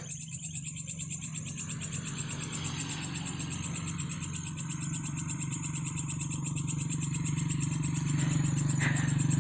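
Night chorus of frogs and insects: a steady high insect trill over a low, pulsing frog chorus that grows louder toward the end.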